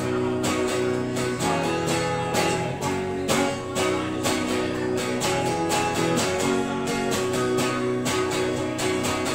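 Clean electric guitar strummed in a steady chord rhythm, with no singing: the instrumental ending of the song.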